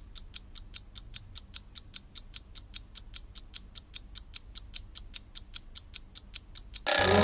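Clock ticking quickly and evenly, about four sharp ticks a second. Near the end, much louder music starts abruptly.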